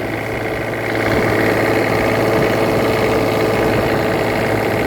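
Cummins Onan 7.5 kW Quiet Diesel generator running steadily just after a start, getting slightly louder about a second in as it settles to speed.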